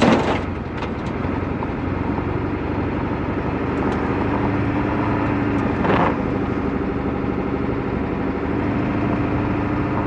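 Ford F-350 truck's Powerstroke V8 diesel engine running steadily as the truck pulls slowly along, with a brief louder noise about six seconds in.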